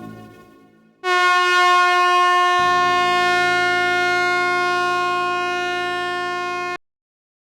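Truck air horn blast: a loud, steady blare that starts suddenly, with a lower second tone joining about a second and a half later. It holds for nearly six seconds, then cuts off abruptly.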